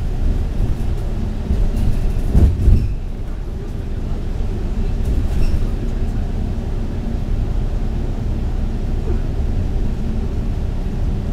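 Steady low rumble of a MAN A95 double-decker bus's engine and tyres at highway speed, heard from inside the cabin, with a brief heavier bump about two and a half seconds in.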